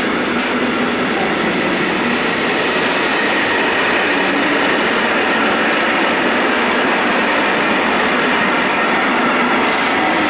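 A train running past on the rails: a steady, loud rush of wheel and track noise.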